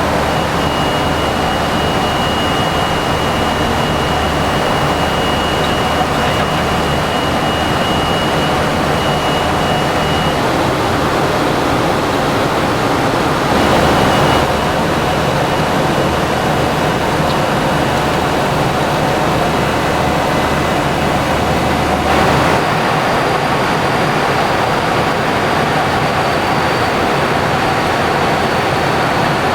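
Steady in-flight noise on the flight deck of a Boeing 737-300: a rush of airflow and jet engine noise, with a thin high whine running through it. About 14 seconds in, and again around 22 seconds, there is a brief louder rush, and after the second one a low hum drops away.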